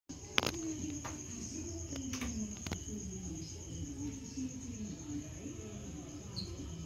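Crickets chirping in a steady, high, continuous trill, with faint distant voices underneath and a few sharp clicks in the first three seconds.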